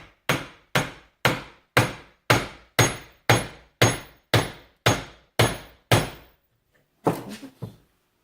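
Hammer blows on a stuck CV axle to drive it out, about two ringing metal-on-metal strikes a second, a dozen in a row. After a brief pause come three or four quicker hits.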